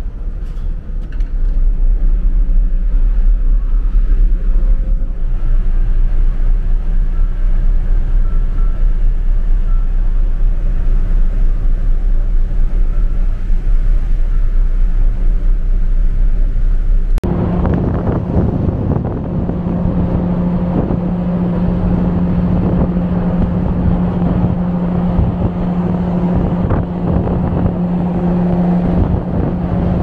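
Steady low drone of an overnight ferry's engines and machinery, heard from inside the ship. About seventeen seconds in it gives way abruptly to wind buffeting the microphone on the open deck, over a steady hum from the ship.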